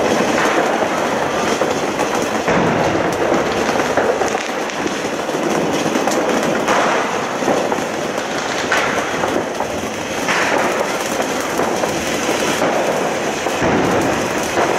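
Ground firework fountain spraying sparks with a steady rushing hiss, crackling throughout, with a sharper crack every second or two.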